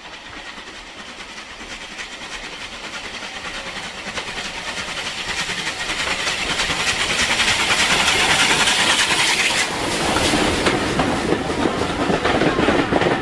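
Steam-hauled train approaching and passing close by, growing steadily louder over about eight seconds. A strong rushing hiss cuts off suddenly about ten seconds in as the locomotive goes past, and the carriages' wheels then clatter over the rail joints.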